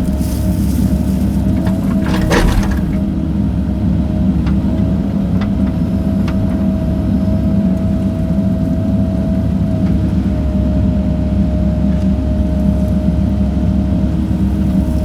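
Cat 308 mini excavator's diesel engine running steadily while digging, with a steady whine over the engine. There is a brief crunch about two seconds in and a few light clicks.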